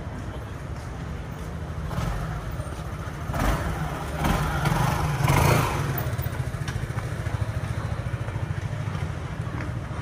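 Street traffic noise with a motorbike passing close by, swelling up and fading between about three and six seconds in, over a steady low rumble.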